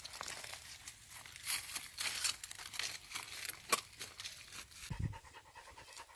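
Footsteps crunching and rustling through dry leaf litter, twigs and undergrowth: irregular crackles and snaps, with a dull bump about five seconds in.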